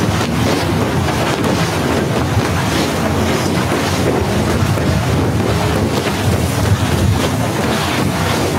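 Snowstorm wind buffeting a phone microphone: a loud, steady rushing with a heavy low rumble that surges and eases.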